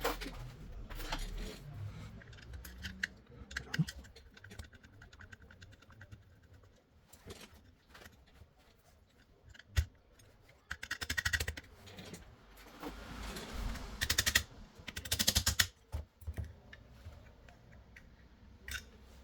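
Small clicks and taps of hand tools working on a TV power board as components are removed, with two fast rattling runs of clicks in the second half.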